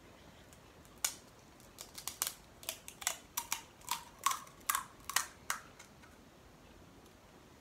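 Crisp fried panipuri (golgappa) shell being cracked open with the fingers: a quick run of sharp crackling snaps, starting about a second in and stopping before the end.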